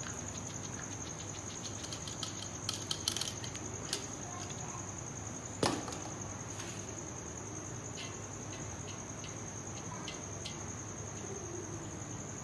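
Boiled rice being tipped from a metal tray into a large aluminium pot and spread by hand: light scattered clicks and taps of metal, with one sharper knock about halfway. A steady high whine and a soft hiss run underneath.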